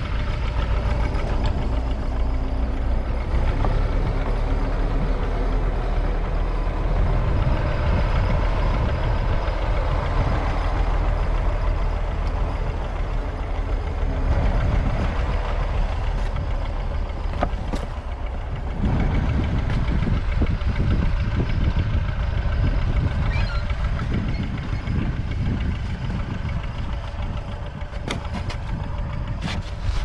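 A vehicle engine running steadily at idle, with a low rumble that swells and fades.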